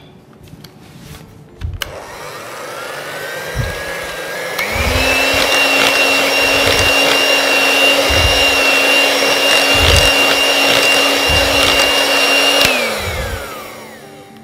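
Electric hand mixer beating the final egg and a spoonful of flour into creamed butter and sugar for a sponge cake. The motor starts about two seconds in with a rising whine, steps up to a higher speed and runs steadily, then winds down near the end.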